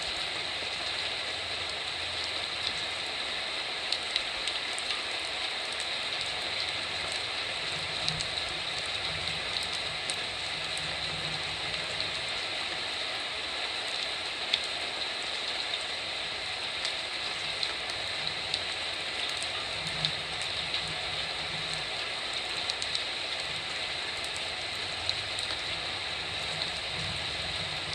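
Heavy typhoon rain falling steadily, with scattered sharp drops ticking close by.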